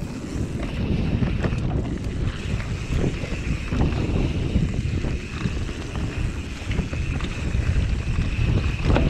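Specialized Enduro Expert Evo mountain bike descending dirt singletrack: tyres rumbling over the dirt with scattered knocks and rattles from the bike over roots and bumps, heavy wind buffeting on the camera microphone. A steady high whir joins about two seconds in.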